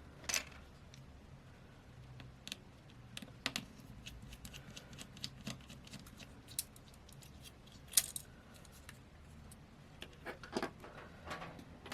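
Scattered light clicks and taps of small hand tools working on a Samsung Galaxy A52's frame during a teardown, the sharpest click about eight seconds in.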